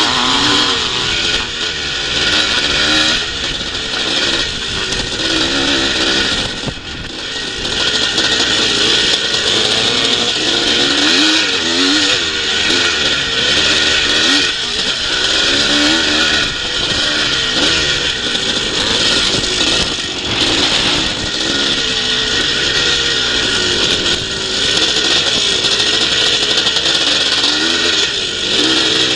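Vintage twinshock motocross bike's engine heard from on board under race load, its pitch rising and falling over and over with throttle and gear changes, over a steady rush of wind and track noise.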